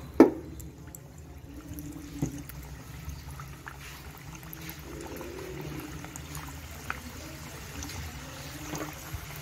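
Samosas deep-frying in hot oil, a steady bubbling sizzle with small scattered pops. A sharp knock just after the start, the loudest sound, and a smaller one about two seconds in.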